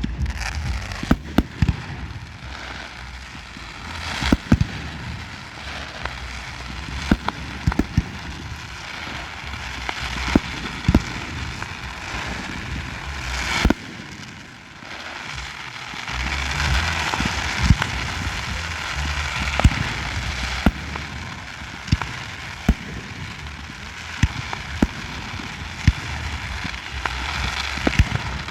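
Fireworks display: irregular sharp bangs of bursting shells, sometimes several in quick succession, over a continuous hiss that swells a little past the middle.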